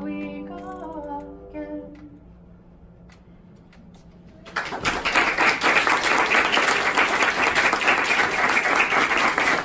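A Steinway grand piano's final chord ringing out and fading over the first two seconds. After a short quiet, an audience applauds from about four and a half seconds in.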